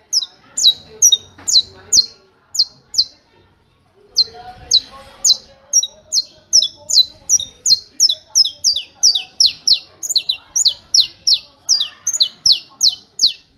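Saffron finch (canário-da-terra) singing its 'martelo' (hammer) song: a long run of sharp, high, downward-slurred notes at about three a second, breaking off briefly about three seconds in and then resuming at a slightly quicker pace.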